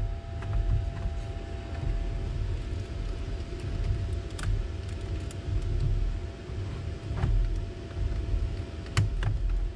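A plastic gauge-cluster hood being fitted and pressed into place on a Honda CRX dashboard: scattered clicks and knocks of the plastic over a continuous low rumble.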